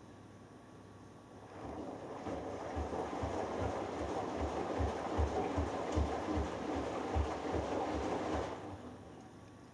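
Hoover Dynamic Next front-loading washing machine on its delicates wash: the drum turns for about seven seconds, water and laundry sloshing with soft repeated low thuds, then stops and the machine pauses.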